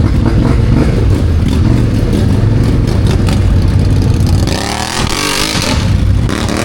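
ATV engine running with a low, uneven rumble, then revving up about four and a half seconds in, its pitch rising for over a second before dropping off.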